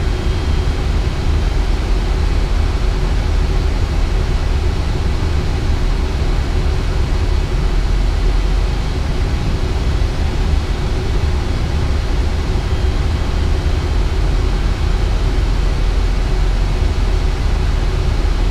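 Airbus A320 flight-deck noise on final approach: a steady deep rumble under an even rush of air, with a faint steady hum.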